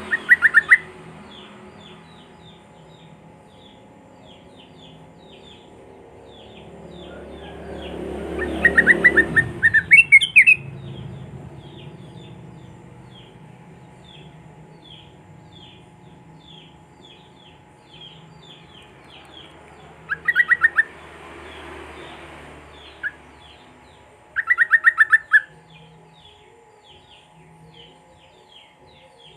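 Sooty-headed bulbul (trucuk) giving loud, fast chattering bursts, each about a second long, five times, over a steady series of short down-slurred chirps from another small bird at about three a second.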